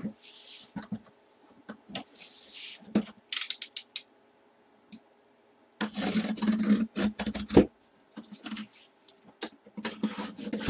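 Cardboard shipping box being opened: short scratchy strokes and a few clicks as the packing tape is slit with a blade, then a longer spell of cardboard scraping and rubbing about six seconds in, and more near the end as the box is handled.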